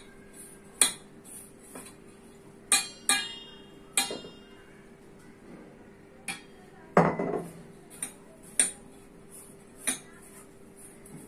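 Scattered clinks and knocks of a steel mixing bowl and small glass bowls being handled during hand-mixing of a dry stuffing, a few of them ringing briefly, with a heavier knock about seven seconds in. A faint steady hum sits underneath.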